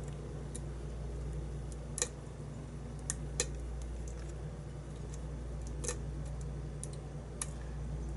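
Light metallic clicks of a hook pick probing the pin stack inside a challenge lock cylinder, about seven at irregular intervals, over a steady low hum.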